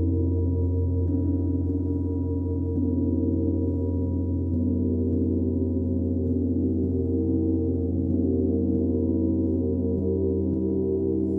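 Large hanging gong played with a soft felt mallet: repeated light strokes keep up a sustained wash of deep, overlapping tones with a strong low hum.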